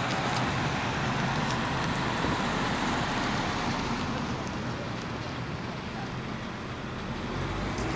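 Road traffic: a car passing close by on the street, its tyre and engine noise an even rush that eases off somewhat after about five seconds.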